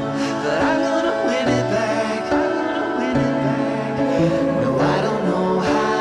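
Background music with held notes and a melody over them.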